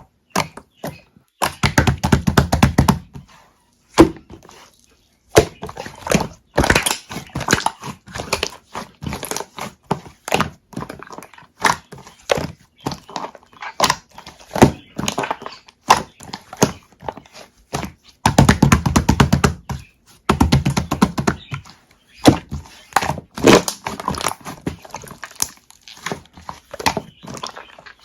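Hands squishing and pressing milk-foam slime, giving a string of sticky clicks and air-bubble pops. There are two dense runs of crackling, one about two seconds in and another around two-thirds of the way through.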